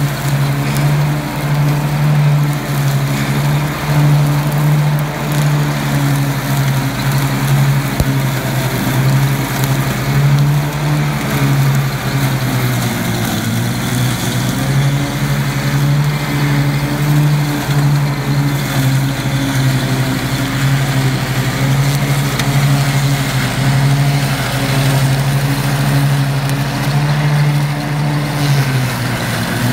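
Ride-on lawn tractor engine running steadily under load while its mower deck cuts through blackberry brambles. The engine note sags briefly about halfway through, then picks up again.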